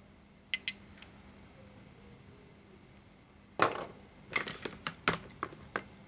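Hard clear-plastic toy crystals clicking and clattering as they are handled and picked from a plastic tray. A few light clicks come near the start, then a louder clatter about three and a half seconds in, followed by a quick run of clicks.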